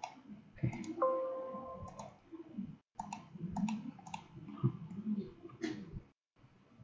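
Computer mouse clicking, several clicks coming in quick pairs like double-clicks. A steady electronic tone like a short beep sounds for about a second, about a second in.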